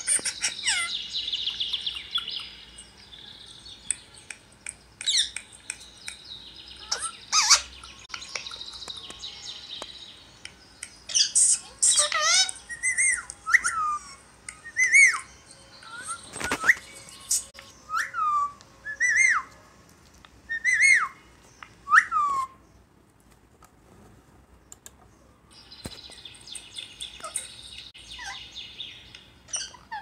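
Indian ringneck parakeet calling: stretches of soft chattering, and in the middle a run of about a dozen short, sharp calls that each drop in pitch.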